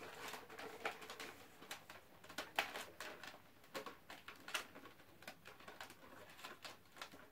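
Faint, scattered plastic clicks and light knocks of a Nerf Elite toy blaster being handled and its parts and magazine fitted together.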